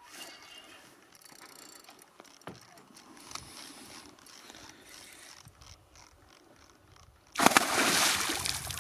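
Fishing reel being cranked against a hooked pike, its gears ticking faintly. About seven seconds in, a loud splash lasting about a second and a half as the pike thrashes at the surface beside the boat.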